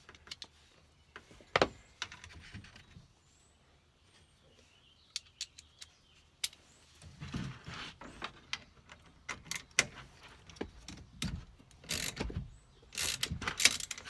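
Metal sockets and tools clinking and rattling as a socket set is picked through to find the right size, a scatter of sharp clicks that bunch together twice, about seven seconds in and again near the end.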